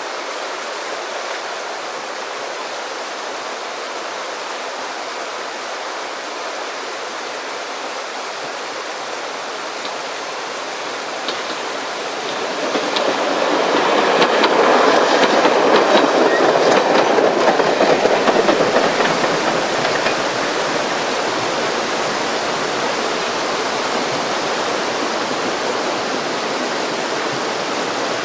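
A diesel multiple unit train passing close by, building to its loudest about halfway through and fading over several seconds, with a few faint clicks as it goes. Under it a steady rushing noise, like running water, carries on throughout.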